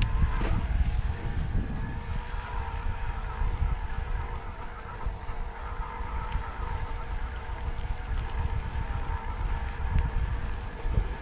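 Riding noise on a trail bike climbing in a low gear: wind buffeting the microphone in a steady fluttering rumble, with a faint steady whine from the bike's drivetrain.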